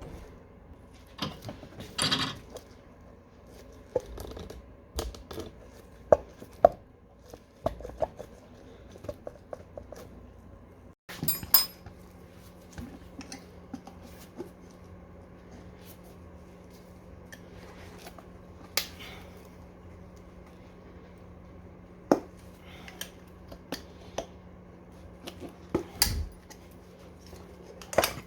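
Irregular metal clicks, clinks and knocks of hand tools and scooter parts being handled and set down during a tyre change. A faint steady hum comes in about eleven seconds in.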